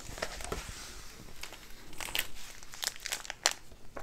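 Plastic packaging crinkling and rustling as it is handled in short, irregular rustles, with a sharper click about three and a half seconds in.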